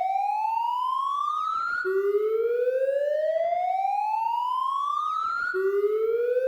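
Police siren wailing in a repeating cycle: the tone climbs steadily for nearly four seconds, then drops back low at once and starts climbing again, twice in this stretch.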